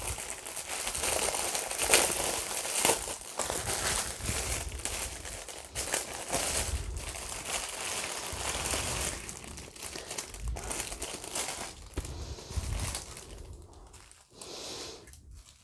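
Small plastic zip-lock bags of diamond-painting drills crinkling and rustling as they are handled, with many small clicks; it dies down near the end.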